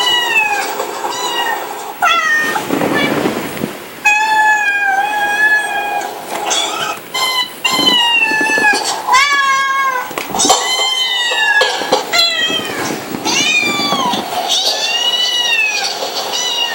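Cat meowing over and over: high, arching meows one after another in quick succession.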